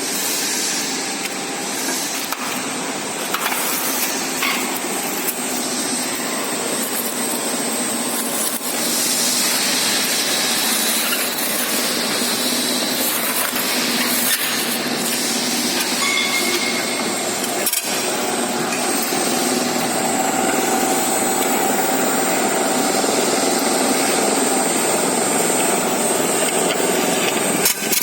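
SGR SBTF-1500K spiral duct forming machine running, sheet-metal strip feeding through its rollers and being wound and seamed into a spiral duct, a steady scraping, rubbing machine noise with a high whine.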